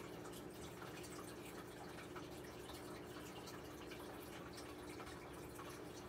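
Faint, steady dripping and trickling of water with a continuous low hum underneath, as from an aquarium setup.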